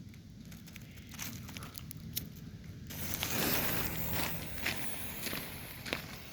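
Faint scattered clicks, then about three seconds in a firework fuse catches and hisses steadily with crackles as it burns down towards the cannon's charge.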